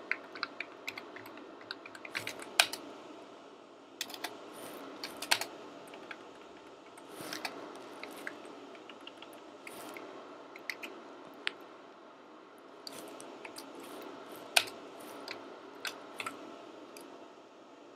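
Computer keyboard typing: irregular keystrokes in short runs with pauses, a few presses louder than the rest, over a steady faint background hum.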